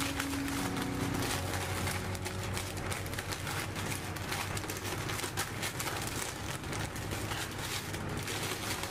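A paper sheet rustling and crinkling as a long sheet of sweet bread is lifted and rolled up with it by hand, in a dense run of small crackles.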